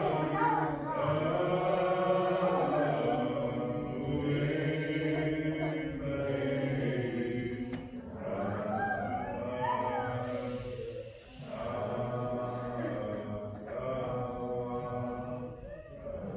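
A congregation singing a hymn in the Muscogee Creek language, with slow, long-held notes in phrases and a brief pause between phrases about two-thirds of the way through.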